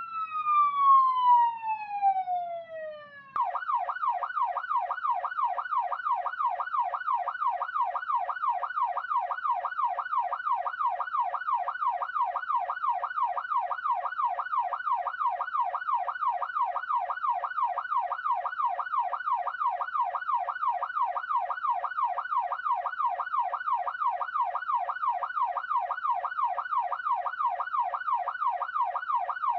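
Electronic police siren: the tail of a slow wail glides down in pitch, then about three seconds in it switches abruptly to a fast, steady yelp, sweeping rapidly up and down over and over.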